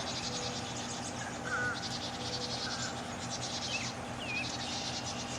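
Insects trilling in high, rapidly pulsing bursts that start and stop, with a few faint short chirps over a steady low background hum.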